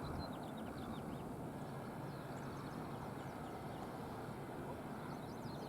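Small birds chirping, many short high downward-sweeping notes scattered throughout, over a steady low outdoor rumble.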